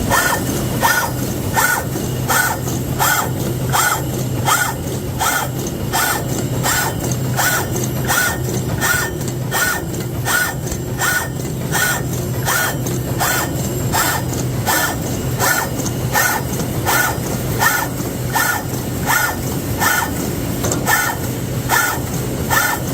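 Continuous wire mesh welding machine running in production, cycling at an even rhythm of just under two strokes a second (about 110 a minute), each stroke a sharp clack with a brief ringing tone, over a steady low hum.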